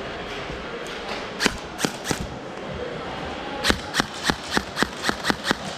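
Gel blaster shots as sharp snapping cracks: a few scattered shots, then a quick string of about eight shots at roughly four a second in the second half.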